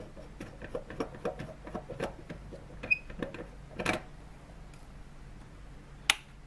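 Light scraping clicks of an LED filament bulb being unscrewed from its lampholder, with a louder knock near the end of it, then a single sharp click of a switch being pressed a little after six seconds in.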